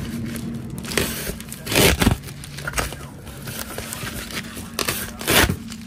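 Freshly sharpened knife blade slicing through paper as a sharpness test: crinkling, tearing cuts, loudest about two seconds in and again near the end.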